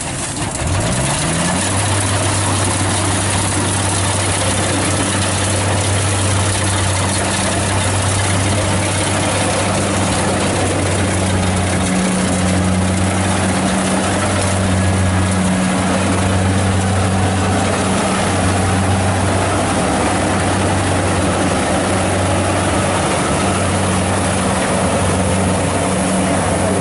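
Kubota 60 rice combine harvester's diesel engine revving up about a second in, then running steadily under load with a deep, even hum. Its cutting and threshing machinery adds a constant whirring noise as it harvests rice.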